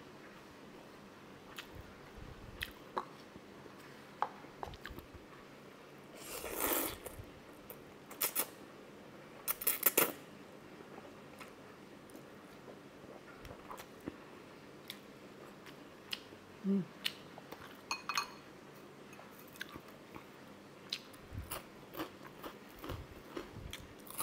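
A person eating spicy instant noodles close to a clip-on microphone: chewing with many small wet mouth clicks, and a longer noodle slurp about six to seven seconds in. Shorter slurps or smacks follow near eight and ten seconds.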